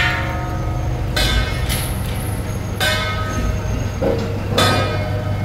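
A metal gong is struck at a slow, even beat, about once every second and a half to two seconds, with three ringing strikes that each fade over about a second. A small engine's steady low hum, from the tug towing the boat trailer, runs underneath.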